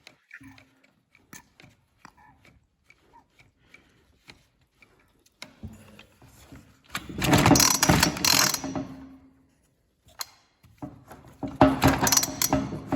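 Ryobi RY3714 37cc two-stroke chainsaw being started: a few faint clicks, then about halfway the engine fires and runs for a couple of seconds before dying, and it fires again near the end. The saw fires up but quits as soon as it is given gas, which the owner takes to mean the carburettor is not drawing fuel.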